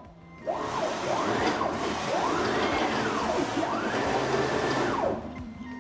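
Stepper motors of the Raw Creative DIY aluminium CNC machine driving the axes through rapid moves at 35,000 mm/min, about four moves in a row. Each move is a whine that climbs in pitch as the axis speeds up, holds and drops as it slows. At this speed the machine keeps running and does not stall or crash.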